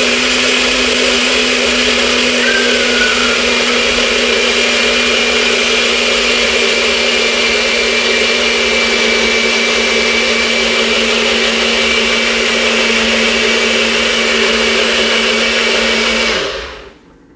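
A NutriBullet personal blender's motor running steadily with a constant tone, blending fruit, ice and almond milk into a smoothie. Near the end the motor winds down, its pitch falling as it stops.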